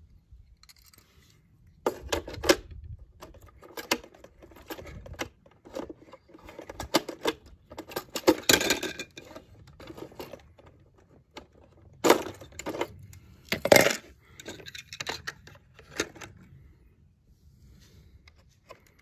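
Die-cast toy cars and a plastic toy car-carrier truck case being handled, a run of small clicks, taps and rattles of metal and hard plastic, with a few louder knocks about 8, 12 and 14 seconds in.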